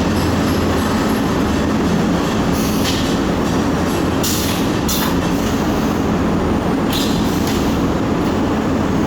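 Automatic cutting machine running on a test, a steady low mechanical hum with short hissing bursts about four times.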